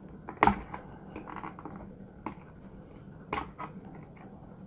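A few small, sharp clicks and light scrapes of a metal tool and fingers working the tiny antenna cable connectors loose on a circuit board. The loudest click comes about half a second in.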